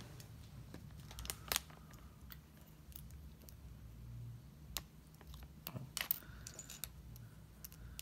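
Small plastic LEGO minifigure parts clicking and tapping as they are handled and pressed together, a scattering of faint clicks over a low steady hum.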